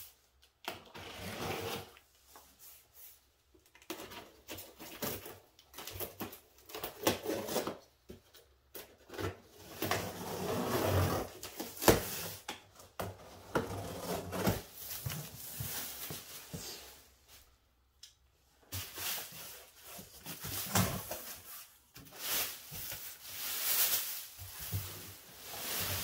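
Packing tape on a large cardboard box being slit and peeled, with irregular scraping, tearing and knocking of cardboard as the flaps are worked open, then plastic wrap rustling near the end.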